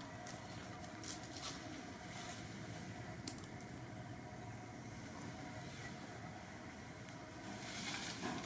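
Faint steady outdoor background rumble, like distant traffic, with a few soft clicks and a brief rustle near the end.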